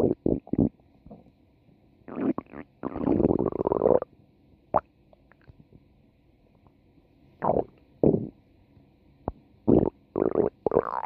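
A stomach growling in irregular gurgles and rumbles: a quick run of short gurgles at the start, a longer rumble from about two to four seconds in, another about halfway through, and a cluster of gurgles near the end.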